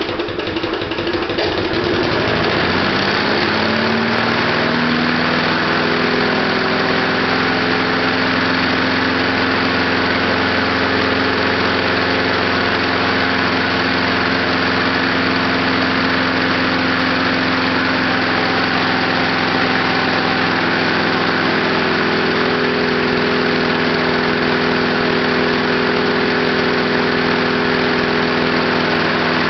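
Lawnmower's small gasoline engine, running on heated gasoline vapor. It picks up speed over the first two or three seconds, then runs steadily at that speed.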